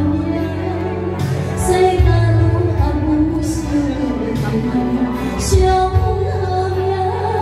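A woman singing into a microphone over backing music with a steady bass line, holding long notes.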